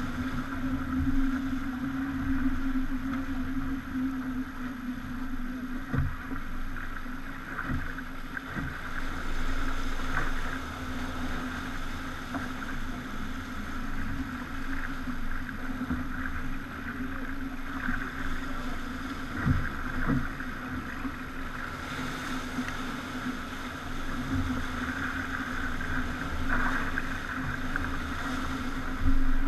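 Pogo 30 sailing yacht under way: a steady engine drone with water and wind noise, and a few short low thumps.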